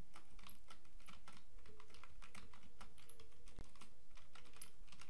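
Typing on a computer keyboard: a run of quick, irregularly spaced key clicks.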